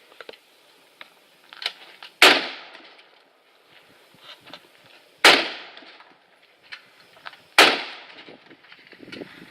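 Three loud gunshots about three seconds and then two seconds apart, each with a short echoing tail, with fainter pops and clicks between them.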